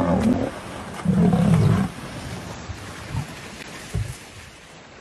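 Lion growling, deep and loud, twice in the first two seconds, then quieter.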